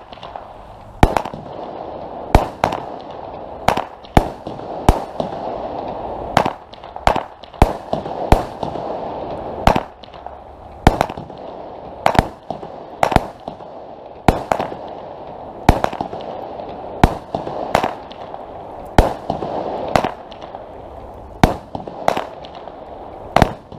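Weco Poison 16-shot consumer fireworks battery firing: a steady string of launch thumps and sharp bursts of the shells breaking, often in close pairs, roughly one shot a second, with a hiss of burning effects between the bangs.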